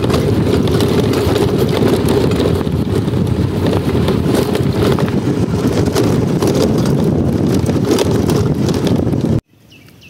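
Vehicle travel noise on a rough dirt forest road: a dense low rumble of wind on the microphone and road noise, with many small knocks and rattles. It cuts off suddenly near the end, leaving faint repeated chirping.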